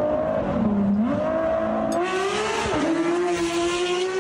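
Porsche 911 GT3 RS flat-six accelerating hard, its note climbing in pitch and dropping sharply at two quick upshifts, about half a second in and again near three seconds in. The quick shifts are typical of its PDK dual-clutch gearbox rather than a manual.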